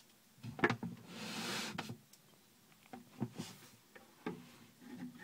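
Scattered clicks and soft knocks as a snake hook prods a hide in wood-shaving bedding, with a short, soft hiss-like rush about a second in.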